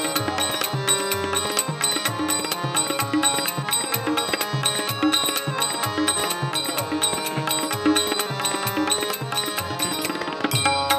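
Tabla playing an instrumental interlude: rapid crisp strokes on the right-hand drum and deep bass strokes on the left-hand bayan recurring steadily. Small hand cymbals keep time over a sustained drone from harmonium and tanpuras.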